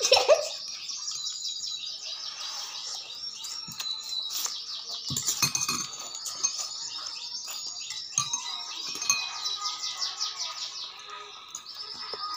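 Small birds chirping and twittering in quick repeated trills. A brief laugh comes right at the start, and there are a couple of soft low knocks.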